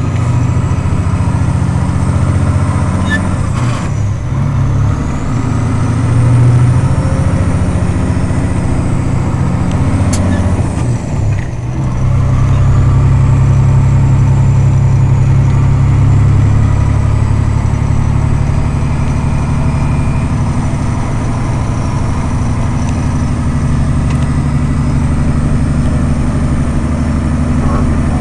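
Diesel engine of a log truck running steadily under way, heard from inside the cab, with a short dip in level about eleven seconds in.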